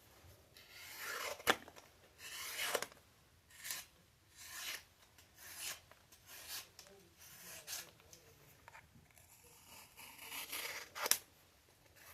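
Freshly sharpened kitchen knife slicing through cardboard in a series of scraping strokes, testing the edge, with a couple of sharp clicks among them.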